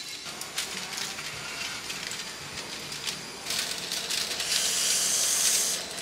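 Aluminium foil crinkling and rustling as it is pulled open by hand. It gets much louder at about the midpoint and keeps going for about two seconds, after lighter handling rustles and clicks.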